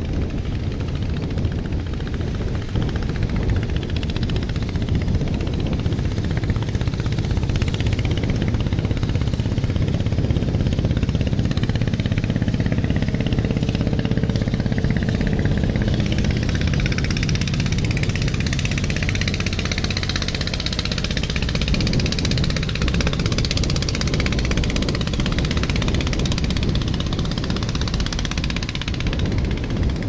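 Gas flare stack burning off waste gas with a steady low rumble, mixed with the sound of the sea. A brighter hissing wash swells up about halfway through and eases off near the end.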